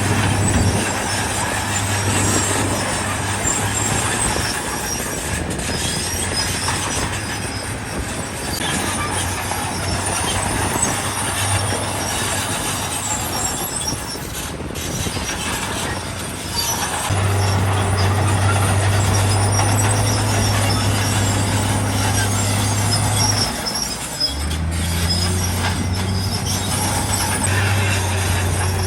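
Heavy diesel construction machinery working: a deep engine drone over constant grinding and rattling noise. The engine note changes and steps up about two-thirds of the way through, and shifts again near the end.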